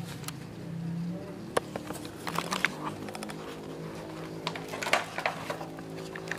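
Clear plastic clamshell food container crackling and clicking as it is handled and pried open by hand, scattered sharp clicks starting about a second and a half in and coming thicker after that.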